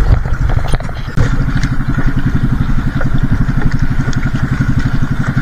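Small fishing boat's engine running at a steady speed, a fast even pulsing that gets louder and steadier about a second in.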